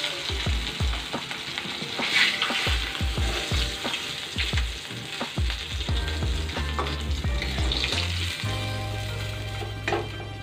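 Fried fish pieces sizzling in hot mustard oil in a wok while a metal spatula scrapes and knocks against the pan, lifting them out. Background music comes in near the end.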